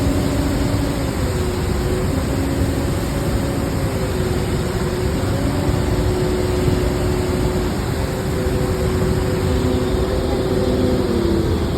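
Steady roar of the Rhine Falls' rushing water, with a faint hum of a few held tones over it, like a motor running.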